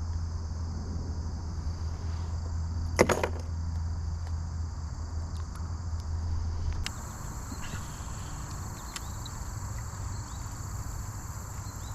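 Insects chirring steadily over a low hum that drops away a little past halfway, with one sharp swish about three seconds in.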